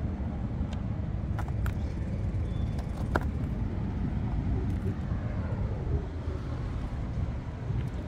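Steady low vehicle rumble with a few faint clicks.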